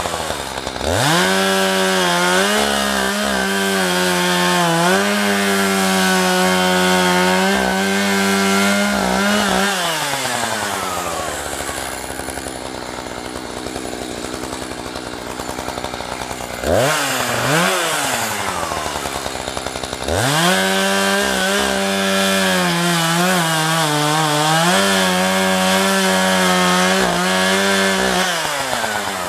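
Two-stroke chainsaw bucking a yellow birch log: it revs to full throttle and runs under load through the cut, then drops to idle about ten seconds in. After a quick blip of the throttle it revs up again about twenty seconds in for a second cut.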